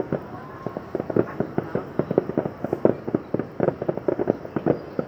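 Fireworks going off in a dense, continuous barrage: many bangs and booms a second, overlapping one another.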